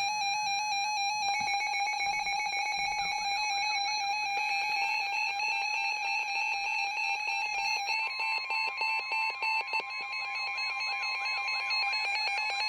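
Electronic tones over a NOAA Weather Radio receiver between warning messages: a steady tone under a fast, evenly pulsing warble. A second steady alert tone joins about eight seconds in and lasts about four seconds.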